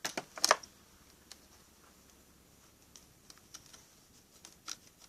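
Two sharp clicks at the start, then scattered light ticks and taps from the old clutch release bearing being handled.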